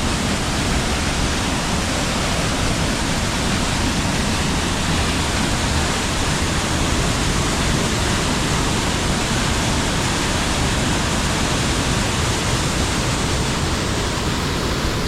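Waterfall on the Amnicon River roaring in high flow, heard close up as a loud, steady rush of falling water.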